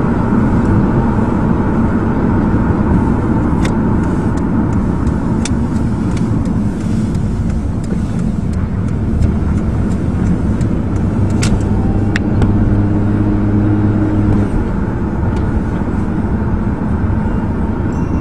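Chrysler Sebring driving, heard from inside the cabin: steady engine and road rumble, with a few sharp clicks and a stronger engine hum for a couple of seconds near the end.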